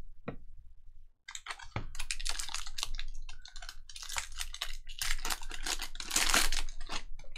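Typing on a computer keyboard: quick runs of keystrokes that begin a little over a second in and grow busiest near the end.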